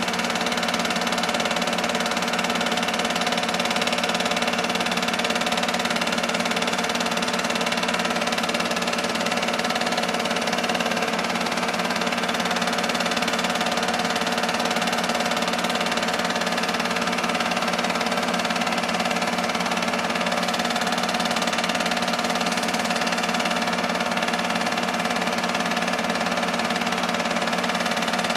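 Film loop projector running: a steady motor hum with the even whirr of its mechanism, unchanging throughout.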